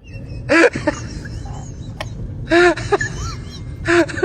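Short rising-and-falling whistling chirps, in bursts about every two seconds, over the steady low rumble of a car, like a whistle coming from the car itself.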